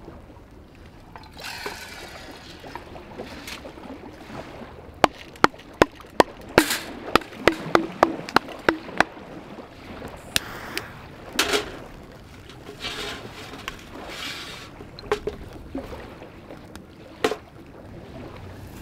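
Metal camp cookware being handled: a metal mess tin, its lid and stove parts clinking and knocking against each other and the metal mesh table, with a quick run of about a dozen sharp clinks in the middle and a few scraping and rustling sounds between them.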